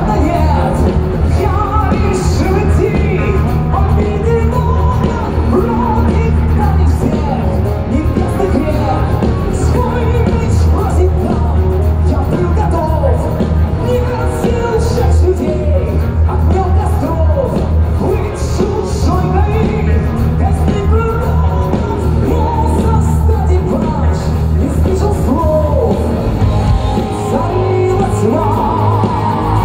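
Heavy metal band playing live in a large hall: drums, bass and guitars with a melody line over the top, the low end shifting to a new pattern near the end.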